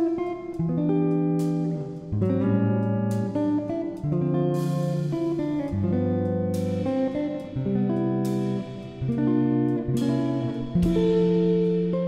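Background music: guitar playing a run of plucked notes, each ringing and fading before the next.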